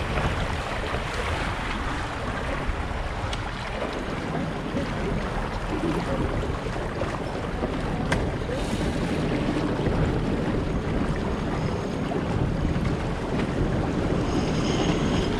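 Wind buffeting the microphone and water rushing along the hull of an Impulse 26 sailboat under sail, a steady noise, with a single sharp click about eight seconds in.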